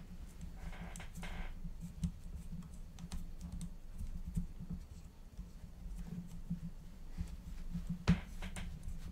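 Small clicks and taps of hands fitting screws and nuts on a carbon-fibre racing-drone frame, with a short scraping rustle about a second in and a sharper knock about eight seconds in.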